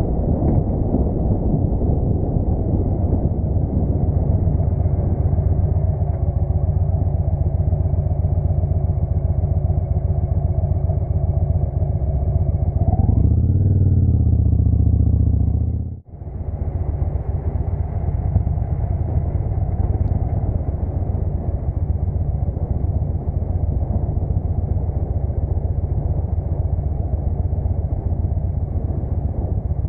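Victory Hammer 8-Ball's V-twin engine running on the road, a steady low rumble. A little before halfway it revs up and falls back, and the sound drops out for a moment about halfway.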